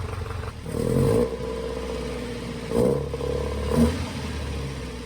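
Alfa Romeo GT 1300 Junior's twin-cam four-cylinder engine running cold at idle and blipped up three times: about a second in, near three seconds and near four seconds. The throttle is opened while the oil pressure gauge is watched.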